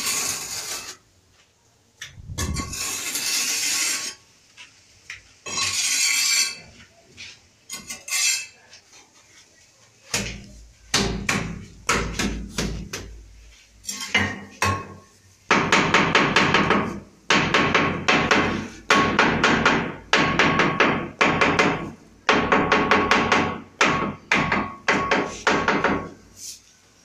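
A hand tool scraping quickly back and forth over glazed ceramic wall tiles, in repeated bursts of a second or two that come thicker and louder in the second half. A few softer rubbing strokes come before them.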